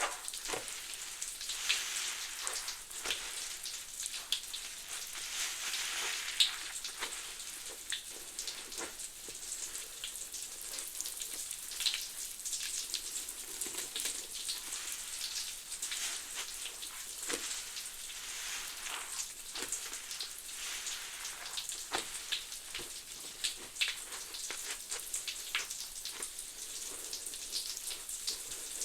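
Soap suds made from Citrus Fabuloso cleaner and Mr. Bubble bubble bath crackling and fizzing: a dense, irregular crackle of tiny popping bubbles, with a few louder pops.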